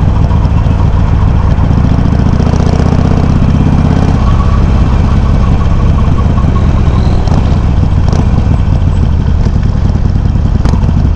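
Harley-Davidson Sportster 883's air-cooled V-twin running loud through Customer slip-on mufflers with low baffles while riding; the engine note changes about four seconds in.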